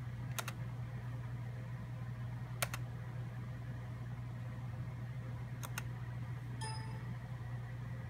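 Computer mouse clicks while browsing folders: a double click near the start, a single louder click about two and a half seconds in, and another double click near six seconds, over a steady low hum.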